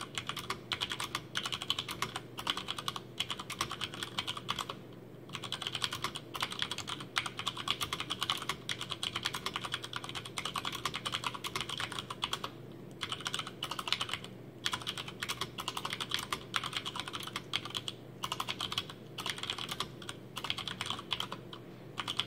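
Fast typing on a Hansung GO187 mechanical keyboard with Cherry MX Brown switches, unlubricated and without sound dampening. The keys give a dense run of clacks, broken by brief pauses a few times.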